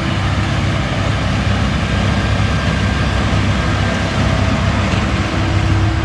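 Tractor engine running steadily as it pulls a Claas Variant 465 RC round baler through the windrows, baling hay, with a faint steady whine over the engine.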